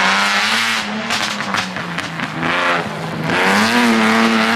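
BMW E9 coupé rally car's straight-six engine revving hard as it passes at speed. The pitch climbs, drops briefly at throttle lifts or gear changes about a second in and again near three seconds, then climbs again, with a few sharp cracks around the first lift.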